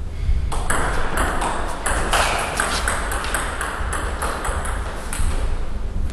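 Table tennis rally: the ball clicking off the bats and bouncing on the table in quick alternation, a fast run of sharp ticks that starts about half a second in and stops a little after five seconds.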